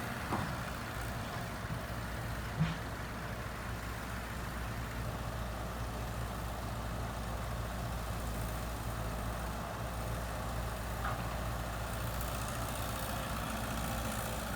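Heavy diesel engine of earthmoving equipment running steadily at low revs, with a short knock about two and a half seconds in.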